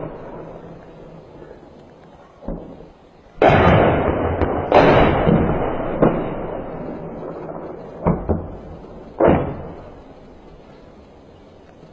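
Shelling heard across a valley: a series of heavy blasts, each with a long rolling echo that fades slowly. The two loudest come about three and a half and five seconds in, and sharper single reports follow near eight and nine seconds.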